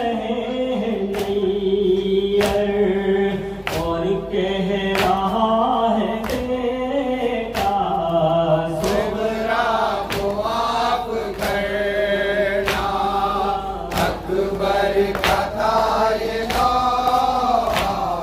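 Men chanting a noha, an Urdu lament, in unison behind a lead reciter singing into a microphone, with long held lines. A sharp chest-beating (matam) slap lands about every second and a quarter, keeping time.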